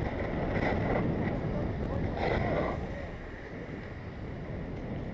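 Skis sliding and scraping over packed snow, with wind rushing over the camera microphone; louder for the first three seconds, then easing as the skier slows.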